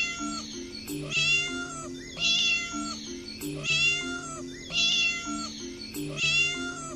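Kitten meowing: six high-pitched meows, about one every 1.2 seconds, so evenly spaced they sound like one call repeated, over background music.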